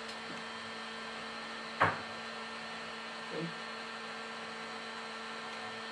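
Steady low electrical hum, with one short click about two seconds in.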